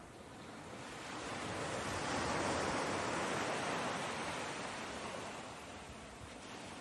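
Ocean surf: a wave washing in, swelling to a peak a couple of seconds in and then slowly falling away.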